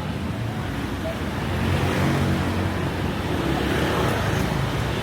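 Street traffic: motor vehicles running past, a steady engine hum with tyre noise that grows louder from about a second and a half in.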